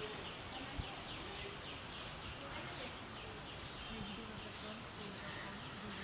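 Many birds chirping in a large tree: a steady chorus of quick, repeated, falling chirps, with short high rasping notes about once a second.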